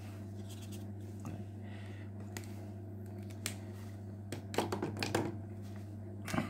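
Paper rustling and small clicks from a notebook and pen being handled, loudest in a burst of crackles about two thirds of the way through and a sharp click near the end, over a steady low hum.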